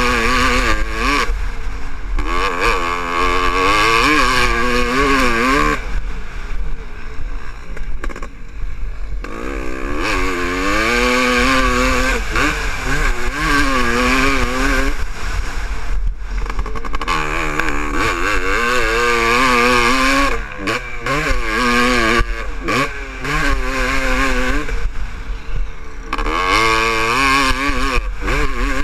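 1998 Honda CR500's 500 cc two-stroke engine being ridden hard, its pitch rising and falling again and again as the throttle is opened and shut through the gears, with a few brief drops where the throttle is rolled off. It is jetted with a 185 main jet and the needle clip one from the bottom, a setting the rider found less clean-running than a 182 main. Wind rumbles on the microphone.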